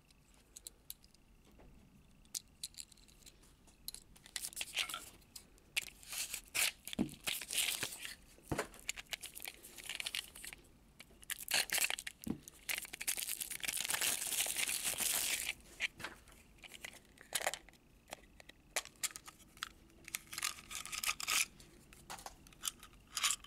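Small toy blind-box packaging being torn open and crinkled by hand, in irregular rustles and sharp clicks, with a longer stretch of tearing about twelve to fifteen seconds in.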